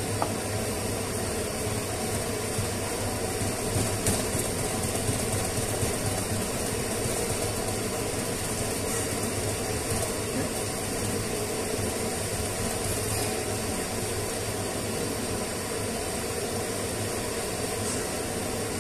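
Steady mechanical drone, a low hum under an even hiss, with a few faint clicks.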